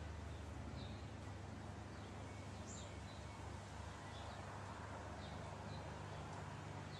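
Faint outdoor ambience: a steady low hum and hiss, with a few short, high bird chirps scattered through.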